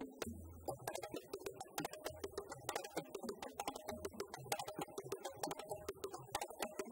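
Djembe hand drumming: a fast run of sharp slaps and ringing tone strokes on the goatskin head, with a deep bass stroke about every two seconds.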